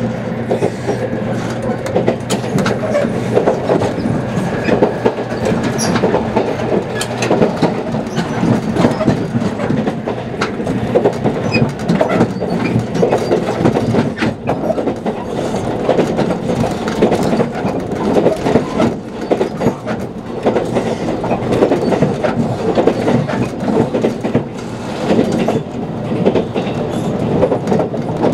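JR Kyushu 787 series electric train running at speed, heard from inside the passenger car: a steady rumble of wheels on rail with frequent sharp clicks.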